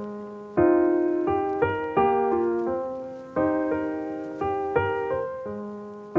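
Background music: a short looping phrase of piano-like notes, each struck and fading, the phrase starting over about every three seconds.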